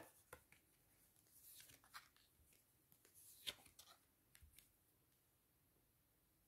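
Faint rustles and light snaps of tarot cards being handled, a scattering of soft clicks that stops about two-thirds of the way in, then near silence.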